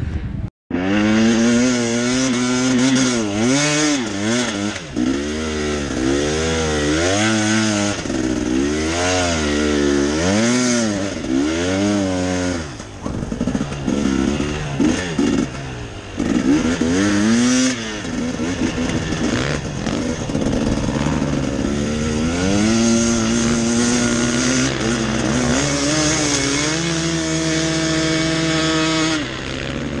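Dirt bike engine revving up and down over and over as the rider works the throttle, then running at a steadier pitch over the last several seconds.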